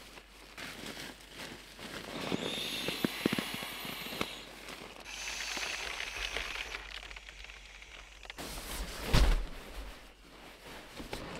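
Campfire crackling and popping irregularly, with a spell of hissing a few seconds in and one louder knock near the end.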